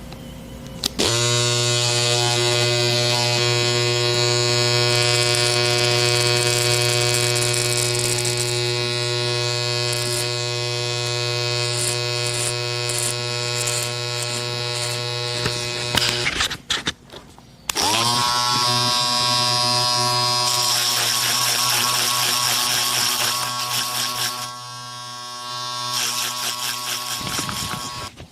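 Caliber electric barber clippers switched on, spinning up and running with a steady buzzing hum, then cut off about halfway through. After a short gap they are switched on again and run with a harsher, hissier buzz for a while before stopping near the end.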